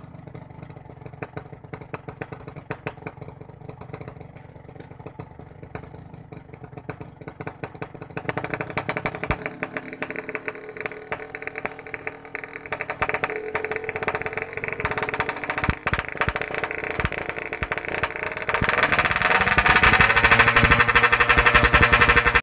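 Yamaha RX-King 135 cc two-stroke single-cylinder engine running through a Packing Power PK2 aftermarket exhaust, idling with a rapid pulsing beat, then revved from about eight seconds in, the revs rising and falling and getting louder near the end.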